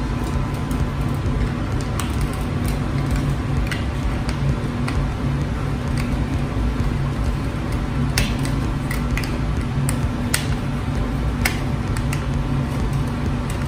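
Screwdriver clicking against the terminal screws of a double-pole circuit breaker as a wire is fastened: a few sharp, scattered ticks. Under them runs a steady low hum.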